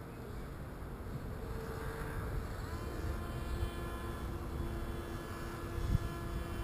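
Paramotor engine and propeller running steadily, its pitch shifting between about one and a half and three seconds in and then holding. A short low thump near the end.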